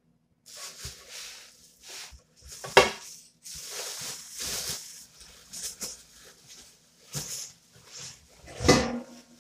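Stainless steel couscous pot and lid being unpacked from a cardboard box: plastic wrapping rustling and crinkling, with metal knocks and clinks of the cookware, two of them louder, one about three seconds in and one near the end.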